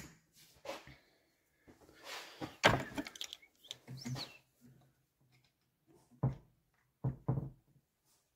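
Metal engine parts and hand tools being handled on a workbench while a scooter engine is taken apart: scattered knocks and clinks, the loudest about two and a half seconds in, with a few more near the end.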